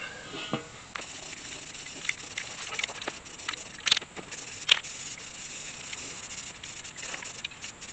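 Aerosol spray paint hissing from a can as a steel truck wheel is painted, with scattered sharp clicks and knocks of the can and metal wheels, two louder ones around the middle.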